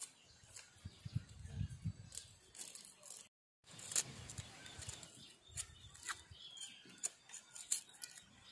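Small knife peeling garlic cloves: irregular light clicks and scrapes of the blade picking off the papery skins, with skins and cloves tapping onto a wooden chopping block. The sound cuts out briefly about a third of the way in.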